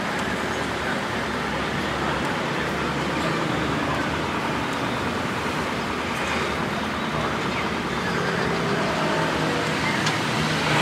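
Steady road-traffic noise, with faint indistinct voices in it.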